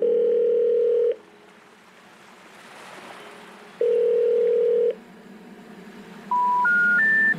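Telephone line tones: two long, steady ringing tones about three seconds apart, then three short beeps each higher than the last. The rising three-beep pattern is the kind of signal that comes before a 'number cannot be reached' recording.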